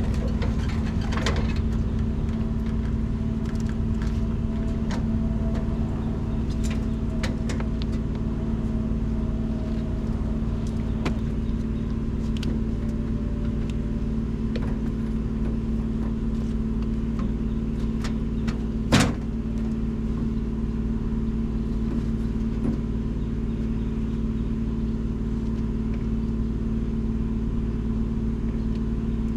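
A diesel engine idles steadily, with a single sharp metallic knock about 19 seconds in.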